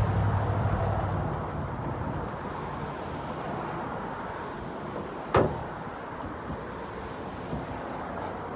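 Low vehicle hum that fades over the first second or so, over steady outdoor noise. About five seconds in comes one sharp plastic snap, the taillight wiring connector clicking into place.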